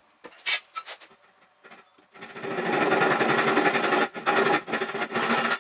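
Hand saw cutting a joint in wood, played back at four times speed so the strokes run together into a fast, loud rasping buzz; it starts about two seconds in, after a few short knocks and taps, and cuts off suddenly at the end.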